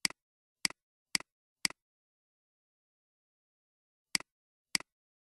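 Computer mouse button clicking. Four clicks come about half a second apart, then after a pause two more near the end, each a quick double tick of press and release, with dead silence between.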